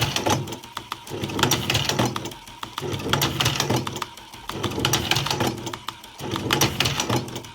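Electric tobacco rolling machine running in repeated cycles, about one every second and a half or so: each a motor hum with rapid clicking, then a short pause before the next.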